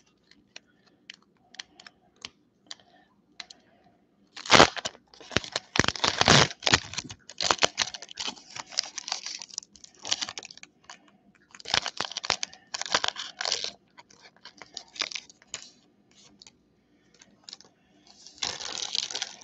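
Foil wrapper of a Pokémon trading-card booster pack being torn open and crinkled by hand, in irregular bursts of crackling with a sharp crack about four seconds in.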